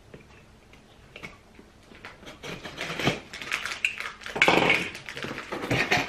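Box cutter slicing the packing tape on a cardboard box, then the cardboard lid flaps being pulled open with scraping and rustling. A few faint clicks at first; the scraping gets louder from about halfway.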